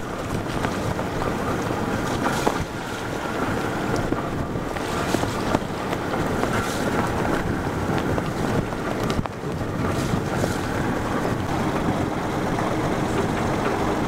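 Gusty wind buffeting the microphone over a sailing yacht's inboard engine running at low revs, with water washing along the hull.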